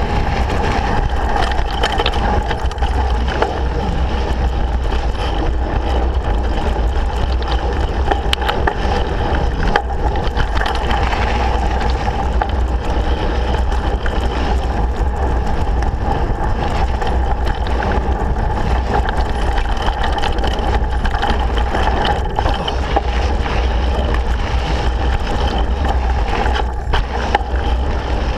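Mountain bike riding fast down a dirt singletrack, heard through a camera mounted on the bike or rider: steady wind buffeting on the microphone and tyre rumble, with the bike rattling and knocking many times over the rough ground.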